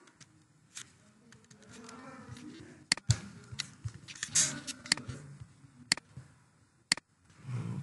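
Scattered sharp clicks of a computer mouse and keyboard, about eight in all, a few in quick pairs, over a faint low murmur.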